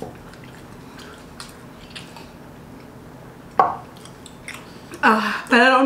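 A few faint small clicks, then a short loud vocal exclamation about three and a half seconds in, and near the end a woman's loud, wavering cheer of victory.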